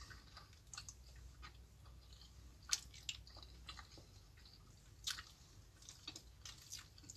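Faint wet chewing and mouth clicks of people eating sandwiches, with a couple of sharper clicks about a third and two-thirds of the way through.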